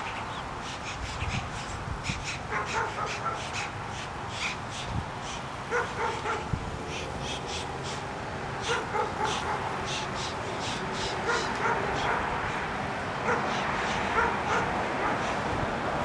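Repeated short animal calls, some sharp and clicky, others pitched, scattered over a steady hiss.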